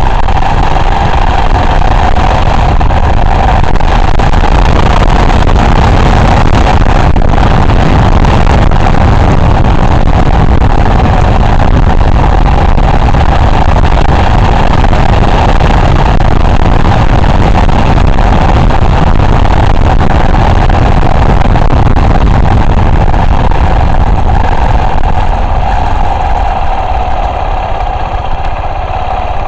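Car driving along a country lane, picked up by a dashcam inside the car: a steady mix of engine and tyre noise with a constant drone. It gets a little quieter near the end.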